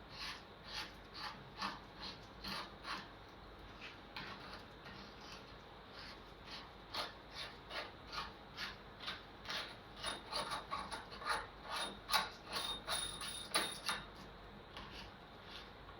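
Steel locking ring being turned along the threaded body of a motorcycle rear shock in short repeated strokes, metal scraping on threads fouled with grit and grime. The strokes come about twice a second and grow quicker and louder in the last few seconds.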